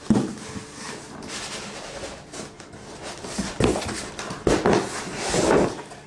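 Cardboard scraping and rubbing as a boxed item is slid out of a larger cardboard box, with several dull thumps of box against box, the loudest about three and a half and four and a half seconds in.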